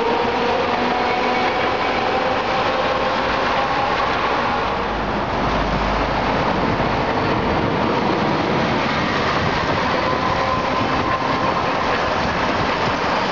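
Streetcars running along street-level tracks amid road traffic: a steady rumble of wheels and motors with faint thin tones that drift slightly in pitch. A heavier low rumble comes about halfway through as a bus passes below.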